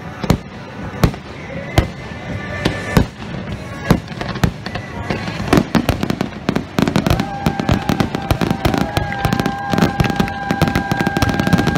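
Aerial fireworks shells bursting: separate sharp bangs at first, then near-continuous banging and crackle from about halfway through as many shells go off together. A steady high tone is held over the last few seconds.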